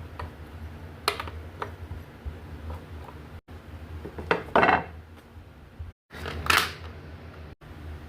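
Hard objects clinking and scraping against each other over a steady low hum: a couple of sharp clicks, then two louder rattling scrapes, broken by brief dead-silent cuts.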